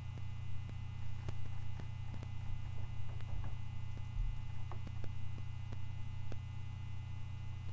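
Steady electrical mains hum on the recording: a low hum with a thin high whine above it, broken by a few faint clicks.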